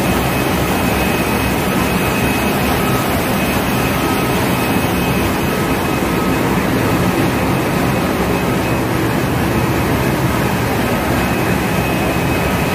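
Loud, steady din of a tanker's engine room with its machinery running, with a faint steady high whine on top.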